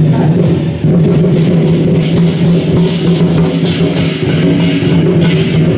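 Lion dance percussion: a large Chinese drum beaten in a steady driving rhythm, with hand cymbals clashing along with it.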